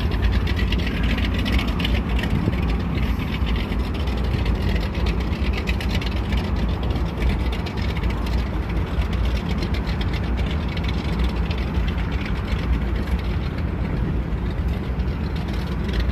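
Pickup truck engine idling steadily with a low, even hum.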